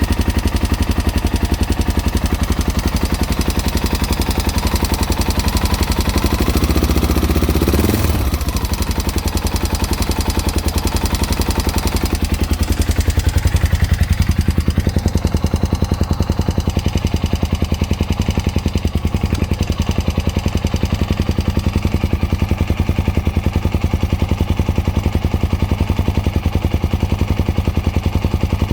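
Honda Dominator NX650's single-cylinder engine idling hot with a rapid, steady clicking from the cam chain area that persists after a new cam chain, tensioner, cam and rocker arms; the owner suspects worn cam chain guides. Partway through, the higher-pitched clatter eases off.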